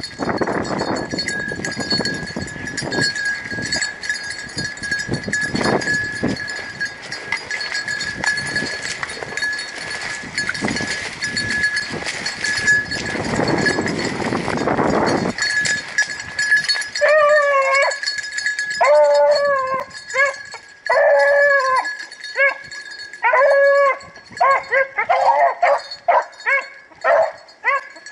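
Dry brush and stems rustling and scraping against someone pushing through thick cover for about the first fifteen seconds. Then, a couple of seconds later, hounds start baying in repeated short calls that rise and fall in pitch: rabbit dogs giving tongue on a rabbit's trail.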